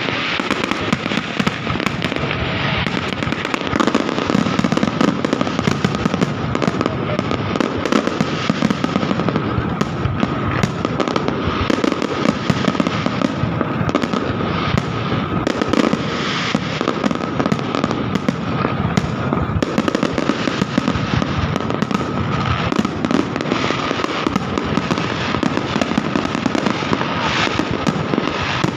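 Fireworks display: a dense, continuous barrage of crackling and popping bursts that keeps going without a pause.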